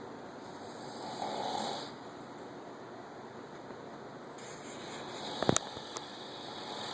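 A man snoring, with one snore about a second in. A few sharp clicks come about five and a half seconds in.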